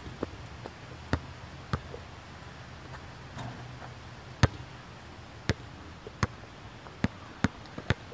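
Basketball bouncing on an outdoor court: about ten separate sharp bounces at uneven spacing, the loudest about halfway through, with the bounces coming quicker near the end as the ball settles.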